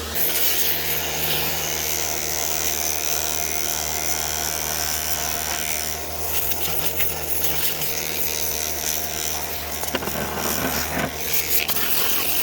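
Pressure washer running with a steady hum while its spray hisses against the truck. The spray hiss drops away near the end, with a few knocks.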